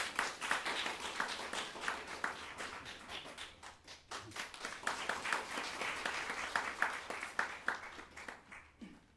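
Small audience applauding, the claps thinning out and dying away near the end.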